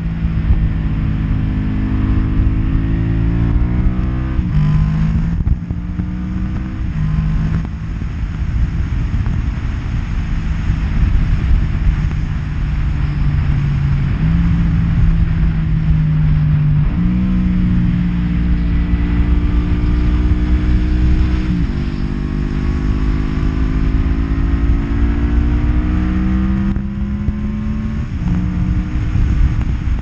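1992 Yamaha Vmax 1200's V4 engine through Delkevic slip-on exhausts, riding under load: the engine note climbs and drops sharply at each gear change, several times over, with a steadier stretch of cruising in between.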